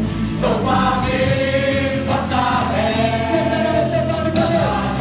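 Worship song sung by a group of singers on microphones through a PA, with long held notes over steady instrumental backing.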